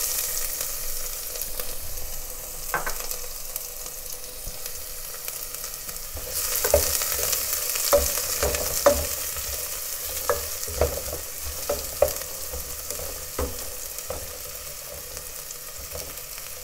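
Diced onion sizzling in hot oil and rendered fat in a pot, stirred with a wooden spoon. About six seconds in, the sizzle grows louder, and for the next several seconds the spoon knocks against the pot about once a second.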